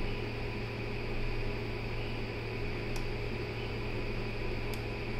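Steady electrical hum and fan noise of equipment in the room, with two faint clicks about three seconds in and near the end.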